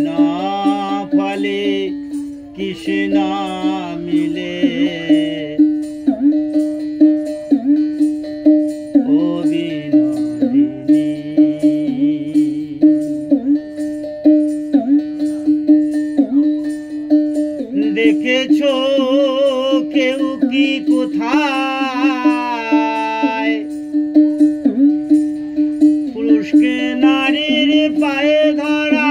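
Background music: a plucked-string tune over a held drone note and a steady beat.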